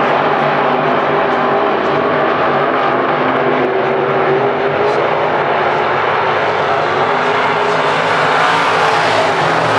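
Dirt-track modified race car engines running at speed on the oval, a loud steady drone that swells slightly near the end.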